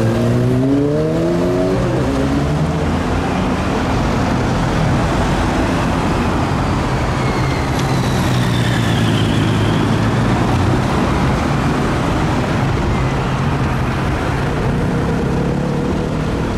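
Steady city road traffic: vehicle engines running and cars passing, with one engine rising in pitch as it pulls away in the first couple of seconds.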